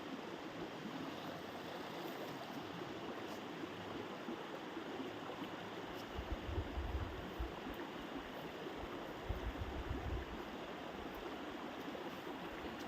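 Steady rushing of a stream or flowing water, with two brief low buffeting rumbles on the microphone, about six and nine seconds in.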